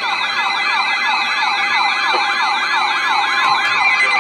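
Electronic siren-like alert tone: several overlapping tones sweep rapidly up and down, several times a second, over a steady high tone. It is the kind of tone that flags an emergency weather alert.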